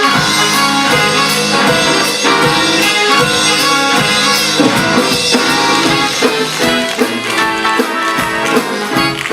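Live band music from a stage show: instruments playing with a steady beat and no clear singing.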